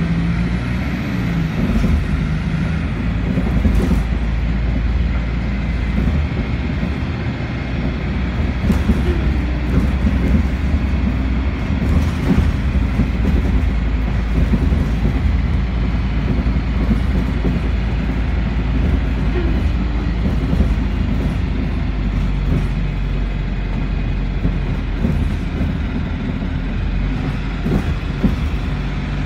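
Steady low rumble of a moving road or rail vehicle heard from inside it, with a few light clicks and rattles.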